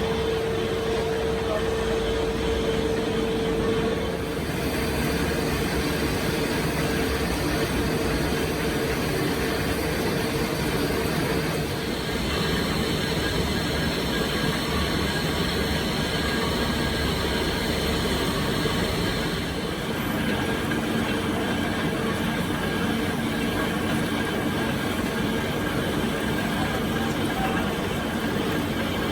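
Steady, loud machinery noise with a humming tone for the first few seconds; the noise changes character a few times but never stops.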